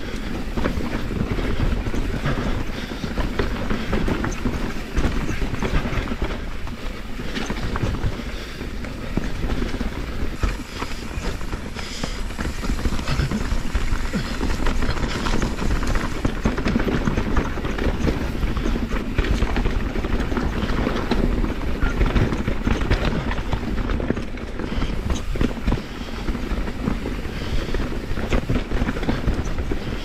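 Kona Process X full-suspension mountain bike riding fast down rocky singletrack: a continuous clatter of tyres over dirt and rocks, with the chain and frame rattling and wind rumbling on the helmet camera's microphone.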